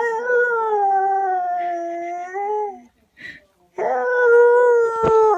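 A dog complaining in long, drawn-out howling whines: two long calls, the first lasting about three seconds and the second starting about a second after it ends, with a short tap during the second.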